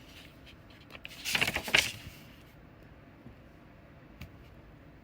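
A book page being turned: a short papery rustle about a second in, lasting under a second.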